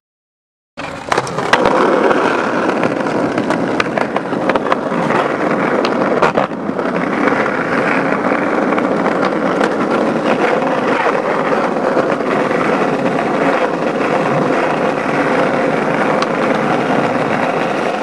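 Skateboard wheels rolling over rough concrete, a steady loud grinding rumble that starts about a second in, with several sharp clacks of the board hitting the ground.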